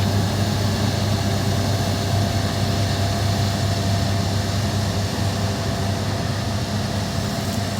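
Harvest machinery engine running steadily: a deep, even drone with a thin, constant whine above it.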